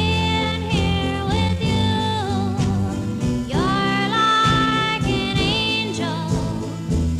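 Background music: a voice singing long held notes with vibrato, sliding up into new phrases, over steady instrumental accompaniment.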